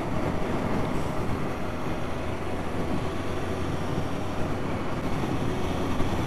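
Motorcycle riding at steady speed: a steady wind rush over the bike-mounted action camera's microphone, with the engine's steady low hum underneath.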